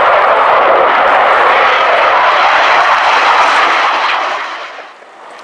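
MiG-29 Fulcrum fighter's twin jet engines: loud, steady jet noise as the aircraft flies past, fading away near the end.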